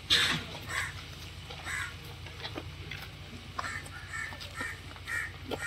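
Crows cawing over and over, a short call every half second to a second, the loudest right at the start.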